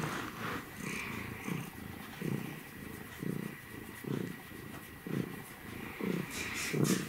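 Domestic cat purring while being stroked, the purr swelling and easing in pulses about once a second.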